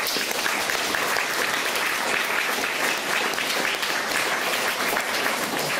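An audience applauding, many hands clapping steadily at once.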